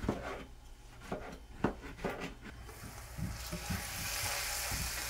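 A few short knocks and scrapes of a utensil in a pan. About three seconds in, hot oil starts a steady frying sizzle that keeps going.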